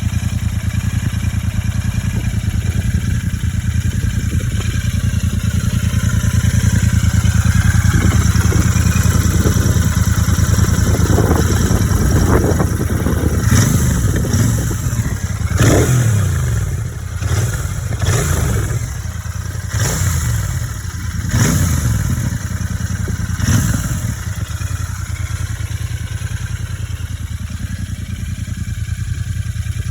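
Royal Enfield Super Meteor 650's 648 cc parallel-twin engine, on stock exhausts with a DNA air filter, idling steadily, then revved in about six short throttle blips from about halfway through before settling back to idle.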